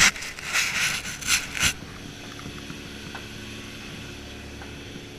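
Boat engine droning steadily, with a few loud rushing bursts in the first two seconds.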